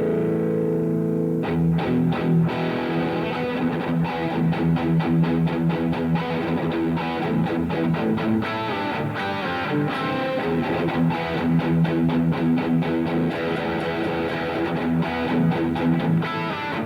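Electric guitar played through a Revv G3 preamp/distortion pedal with a crunchy, distorted tone: a held chord, then about a second and a half in, fast picked riffs and short chugging chords.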